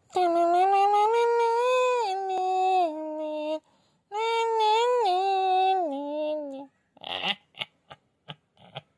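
A high-pitched, synthetic-sounding voice speaks two phrases with smooth gliding pitch, most likely reading out the riddle. About five short, sharp sounds follow over the last two seconds.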